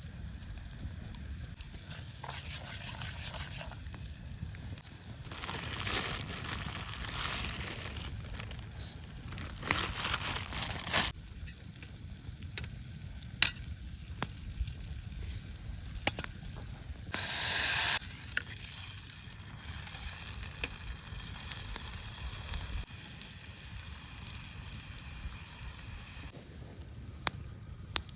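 Food sizzling in a pan over a campfire, the sizzle swelling in surges of a second or two, loudest near the middle, with sharp pops and crackles from the fire.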